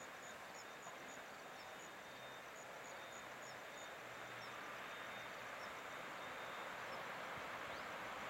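Distant WAG-7 electric locomotive and container freight train approaching, a low rumbling noise that slowly grows louder. Short high chirps repeat over it, with a thin steady high whine in the first half.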